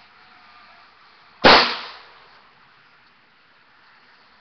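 A single gunshot about a second and a half in, sharp and loud, with a short fading tail.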